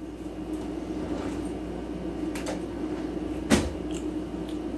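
Things being handled off camera while scissors are fetched: a couple of light clicks and one sharp knock about three and a half seconds in, over a steady low hum.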